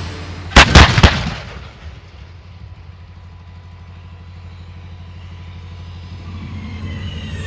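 A battery of 2S19 Msta-S self-propelled howitzers firing a volley: several very loud gun blasts in quick succession, about half a second in. A steady low engine rumble follows and slowly grows louder.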